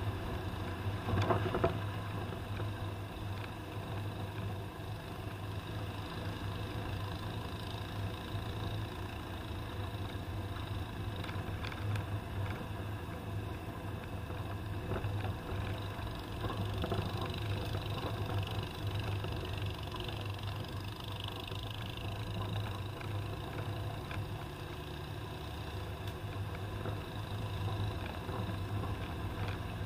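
Toyota Land Cruiser driving: its engine runs steadily with a low hum under continuous road and body noise, and there is a brief louder noise about a second and a half in.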